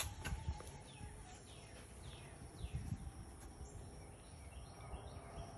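Small birds chirping, a string of quick chirps that slide down in pitch, over a low rumble.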